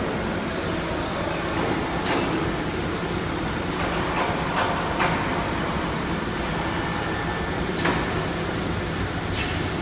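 Steady rumbling machinery noise of a workshop floor, with a few scattered clicks and knocks.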